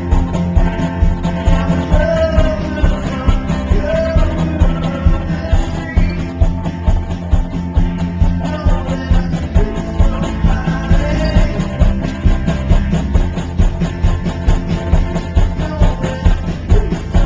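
Live rock band playing with drums, guitars and a lead singer's voice, loud and dense.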